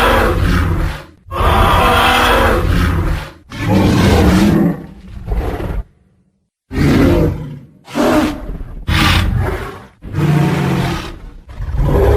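Tyrannosaurus rex roar sound effect: a string of loud, deep roars and growls, each about one to two seconds long, with a short silent break about six seconds in.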